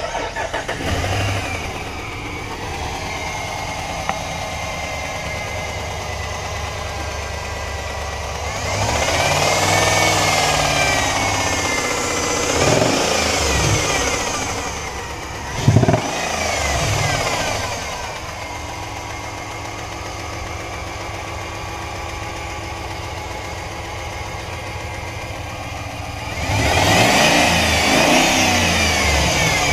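2015 Dodge Ram 1500's 5.7L Hemi V8 with about 272,000 miles running at idle and being revved: a few rises and falls in engine speed about a third of the way in, a quick sharp blip about halfway, then steady idle before another rev near the end.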